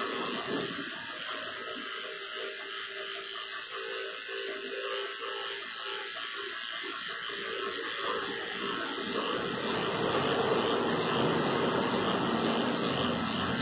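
Electric dog grooming clipper running steadily as it shears a cocker spaniel's coat.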